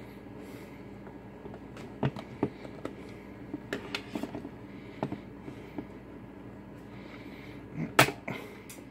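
Scattered small clicks and taps of plastic and a small screwdriver as the screwed-on battery cover on the back of a multimeter is undone and pried off. The sharpest, loudest click comes near the end.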